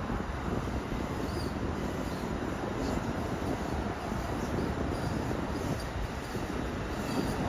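Steady low rumbling of a train running on the tracks.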